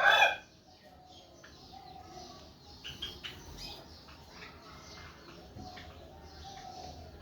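Java sparrows chirping, many short scattered calls from a group of birds, opening with a brief loud burst in the first moment.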